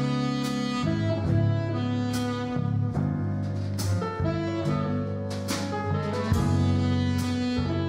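Small jazz band playing: a tenor saxophone plays the lead over piano, bass and drums, with regular cymbal strokes keeping time.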